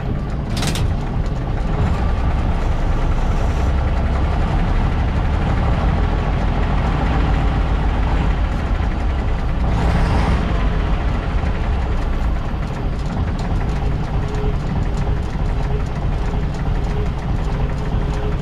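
Leyland PS1 bus's six-cylinder diesel engine idling steadily, heard from inside the cab. A short sharp burst of noise about a second in and a brief hiss around ten seconds in.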